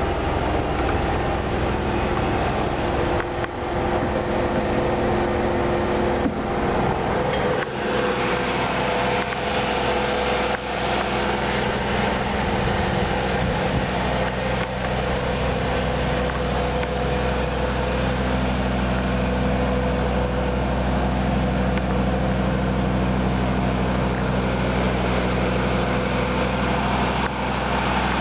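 A Ford E450 shuttle bus's 6.8-litre Triton V10 gas engine running steadily, a constant hum with a few brief dips in level.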